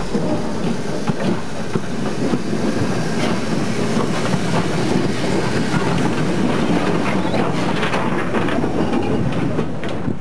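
A train running along the track, a steady rumble with scattered clicks from the wheels on the rails.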